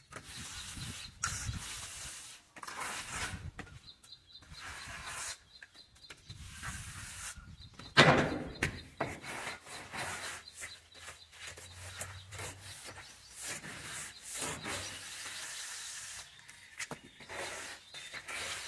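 Wooden straightedge scraped back and forth over fresh cement plaster to level it, in repeated scraping strokes, with one sharp knock about halfway through.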